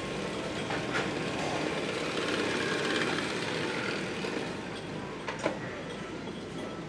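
Din of a conveyor-belt sushi restaurant: a steady mechanical running noise with light clatter, louder in the middle, and a sharp click about five and a half seconds in.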